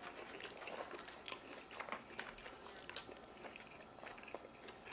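Quiet eating sounds: chewing, with many small scattered clicks of plastic forks against aluminium foil takeout pans.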